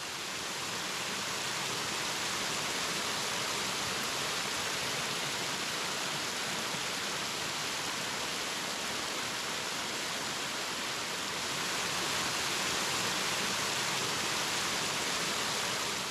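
Small waterfall spilling over a rock ledge and splashing into a shallow pool: a steady hiss of falling water, rising in over the first second or two.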